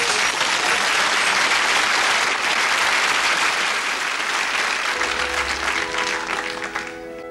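Audience applauding in a dense patter that fades away near the end. Gentle music comes in about five seconds in.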